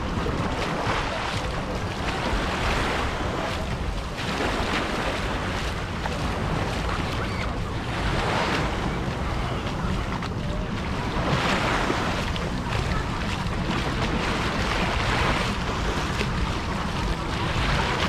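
Sea waves washing onto the shore, their hiss rising and falling every few seconds, with steady wind rumbling on the microphone.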